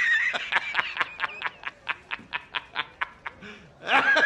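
A man's cackling laughter: a shrill held note, then a rapid run of short 'ha' bursts, about five a second, that fade away. A second shrill burst of laughter starts near the end.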